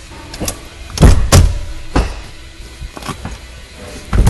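Clunks and knocks of a 2011 Dodge Grand Caravan's third-row Stow 'n Go seat being unlatched by its pull straps, folding over and dropping into its floor well. Several sharp knocks, the loudest about a second in and another just before the end.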